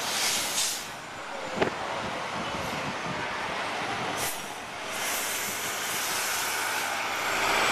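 Articulated New York City transit bus driving past close by, its engine and tyres making a steady noise, with short hisses and a sharp knock about one and a half seconds in; it grows louder near the end.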